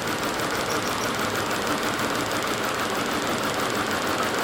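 Volkswagen Passat 1.8T four-cylinder turbo engine idling rough with a misfire from failing ignition coils.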